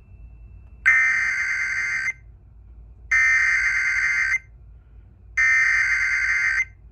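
Three bursts of Emergency Alert System SAME header data, each a harsh buzzing digital warble about a second long with a second of silence between them. It is the coded header that opens an EAS severe thunderstorm warning on broadcast radio.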